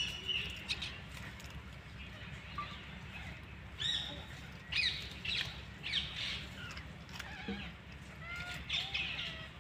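Short high chirping calls, each sliding quickly down in pitch, repeated irregularly several times from about four seconds in, with a few lower warbling notes near the end, over a low steady hum.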